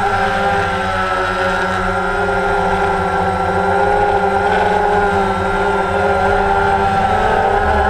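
Multirotor drone's propellers whining steadily in flight, several tones drifting slightly up and down in pitch.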